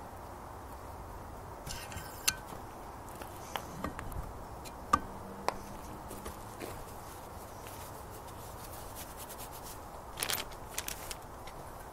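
A few light clicks and scrapes of handling the parts as a rubber water-pump impeller is slid onto the driveshaft of a Johnson 9.5 HP outboard, over a steady background hiss. The sharpest click comes about five seconds in, with a small cluster near the end.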